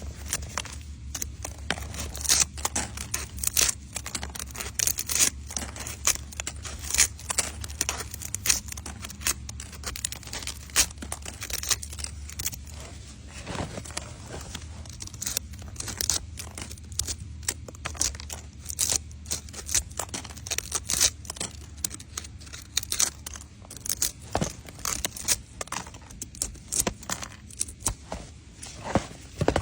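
Close crinkling and tearing handling noise: a dense, irregular run of sharp crackles and snaps, over a steady low hum that stops near the end.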